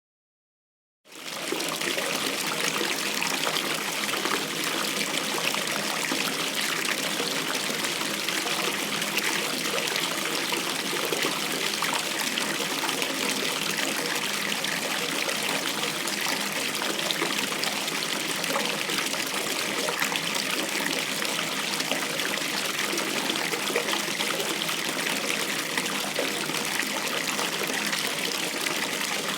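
Water running from a tap into a bathtub as it fills, pouring and splashing steadily. It starts suddenly about a second in.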